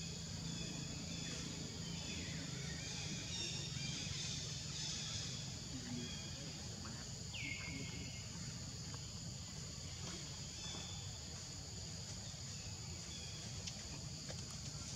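Forest ambience: a steady high-pitched insect chorus with scattered short bird calls, and one call about halfway through that drops in pitch and then holds level.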